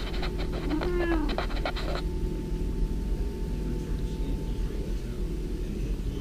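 Domestic cat chattering at something outside the window: a run of quick clicks with a short chirping mew that rises and falls about a second in, stopping about two seconds in. A steady low hum lies underneath.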